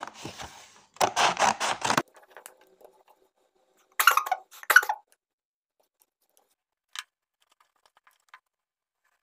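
Rustling and scraping handling noise: a short burst, then a quick run of about five strokes, another burst a few seconds later, and then a couple of light clicks.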